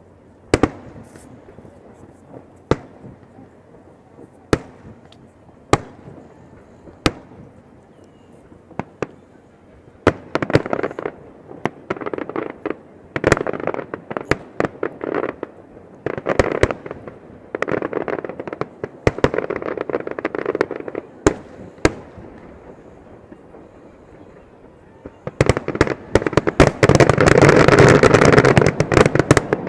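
Fireworks bursting: single sharp bangs every second or two, then clusters of rapid bangs and crackling from about ten seconds in. Near the end it builds to a loud, dense barrage of bangs and crackle.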